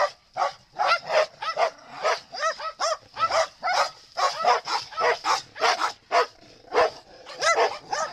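Several dogs barking and yipping in quick succession, about two or three barks a second.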